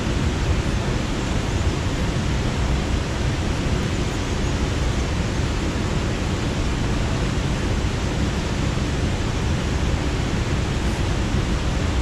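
A mountain stream rushing steadily, an even noise with no pauses or changes.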